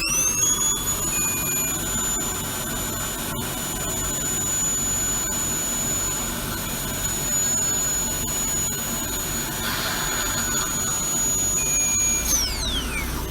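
High-speed air-driven dental drill spinning up to a steady high-pitched whine within half a second, held for about twelve seconds, then winding down in pitch near the end.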